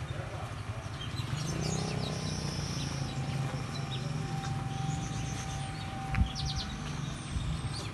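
Outdoor ambience: small birds chirping in short high calls over a steady low hum, with a thin steady tone held for about four seconds in the middle.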